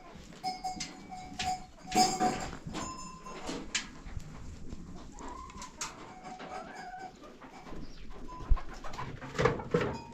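Birds calling in short repeated notes, among scattered clicks and knocks.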